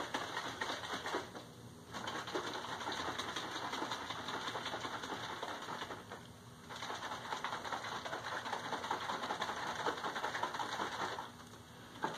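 Hot water and clover honey sloshing in a capped plastic jug being shaken hard to dissolve the honey, in three bouts with short pauses between them.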